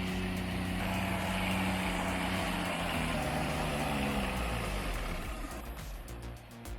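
Heavy loaded logging truck's engine straining as it climbs, its pitch wavering, then growing quieter after about five seconds.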